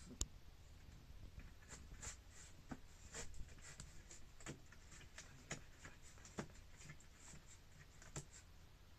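A cat lands with a sharp knock just after the start, then faint scattered ticks and taps of its paws and claws on a wooden floor.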